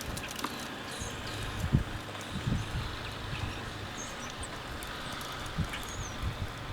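Wind buffeting the microphone in irregular low thumps over a steady outdoor hiss, with a few faint high bird chirps.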